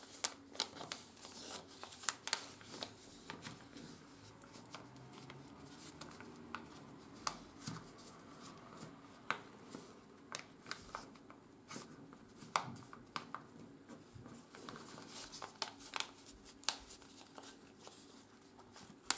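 Sheet of 80 g/m² office paper being folded and creased by hand: scattered faint crinkles and soft taps as fingers press along the folds and turn the folded piece.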